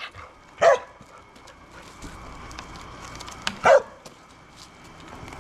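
A dog barking twice during a game of fetch, the barks about three seconds apart.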